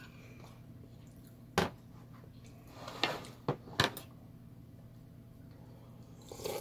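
A metal spoon clinking sharply a few times against a black earthenware pot of samgyetang while scooping broth, with a soft sip from the spoon near the end.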